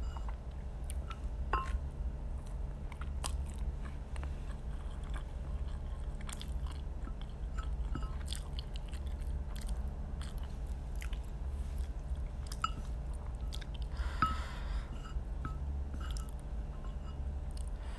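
A person chewing mouthfuls of Indomie instant noodles, with many small scattered clicks and smacks, over a steady low hum.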